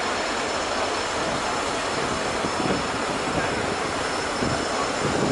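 Steady, even roar of the railway breakdown crane's engine running while it works to lift a derailed coach.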